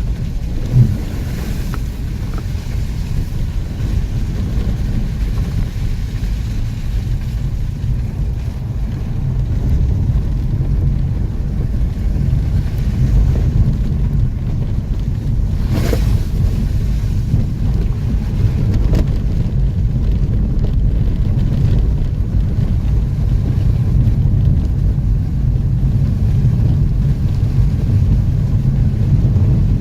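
Off-road vehicle driving over rough ground: a steady low engine and chassis rumble with wind buffeting the microphone, a sharp knock about a second in and a click about halfway through.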